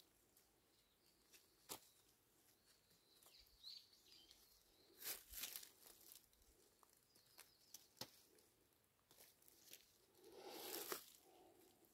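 Near silence broken by a few faint sharp snips of hand pruning shears cutting young hardy kiwi shoots, and soft rustling of leaves and plastic mulch. The loudest rustles come about five seconds in and near the end.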